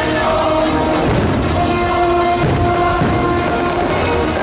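Loud orchestral soundtrack of a fireworks show, with held notes and drums, over the low thuds of fireworks shells bursting overhead, clustered a little past halfway.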